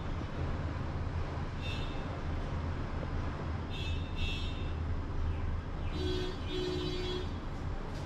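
Steady street-traffic rumble with vehicle horns sounding: short high toots about two and four seconds in, and a lower horn blown twice around six to seven seconds.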